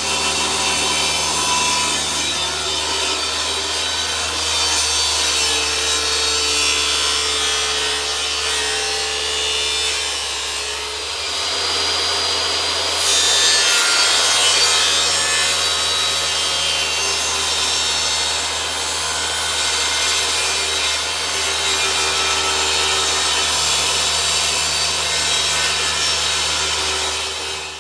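Power tool working a surface: a steady rasping, abrasive noise over a low motor hum, with small shifts in level and pitch around the middle.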